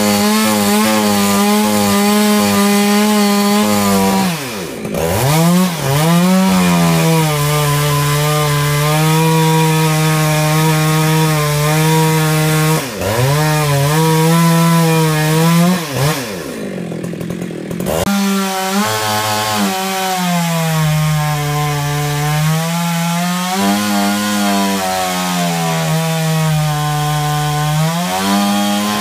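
Petrol chainsaw cutting into the trunk of a horse chestnut tree at full throttle, a loud steady engine note. Twice, about four and a half seconds in and again around sixteen seconds, the engine drops off throttle and revs back up before cutting on.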